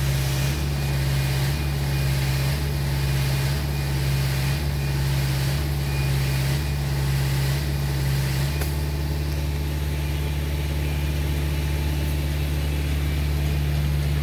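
Concrete pump running, its engine drone pulsing about once a second as the pump strokes concrete through the hose. About eight seconds in the pulsing stops and the engine runs on steadily.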